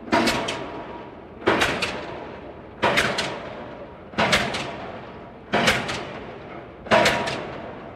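Pile driver hammering at a steady pace, about one blow every second and a half, six blows in all. Each blow lands as a quick double or triple clang of metal on metal, then rings away.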